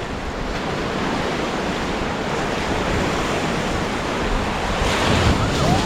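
Rushing whitewater of a river rapid around a raft, a steady churning rush with wind buffeting the microphone, swelling louder near the end.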